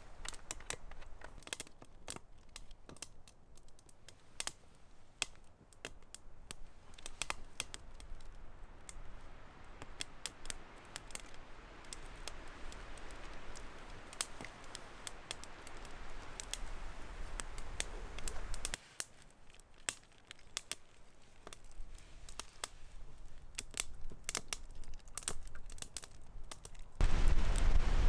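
Small twig fire crackling in a Solo Stove Lite wood-burning camp stove: many sharp, irregular pops and snaps over a soft hiss of flame. A louder rush of noise comes in near the end.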